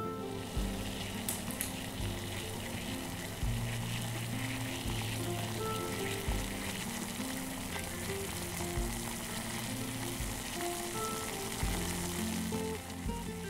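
A pot of tom yum broth at a rolling boil, with a steady bubbling hiss. Background music with a bass line plays underneath, and there are a couple of light clicks about a second in.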